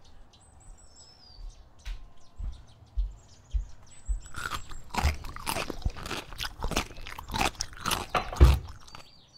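Loud crunching, like something hard being bitten and chewed: a dense run of sharp cracks from about four and a half seconds in. Before it there are only faint bird chirps and a few soft thuds.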